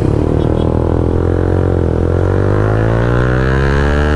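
Yamaha MT-15's 155 cc single-cylinder engine accelerating in second gear, its pitch rising steadily as the revs climb.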